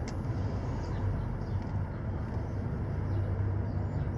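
Steady low background rumble outdoors, with a faint click at the start.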